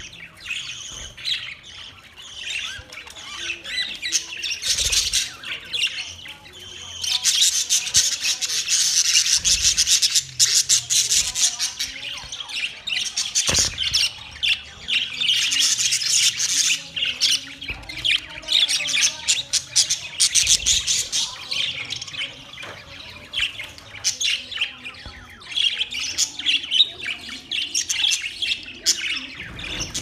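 Budgerigars chattering: a dense, fast stream of high-pitched chirps and squawks, busiest and loudest from about seven to twenty seconds in.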